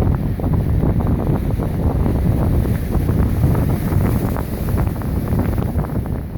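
Strong wind buffeting the microphone in a constant rumble, over the noise of big lake waves crashing on the shore.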